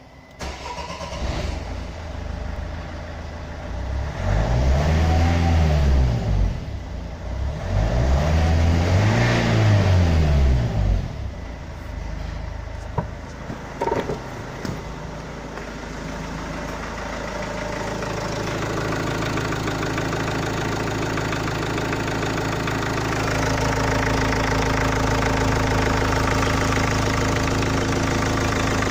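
Opel Vivaro's 1.9 dCi (Renault F9Q) four-cylinder turbodiesel starts up and is revved twice, each rev rising and falling over a few seconds. It then idles steadily, louder over the last several seconds.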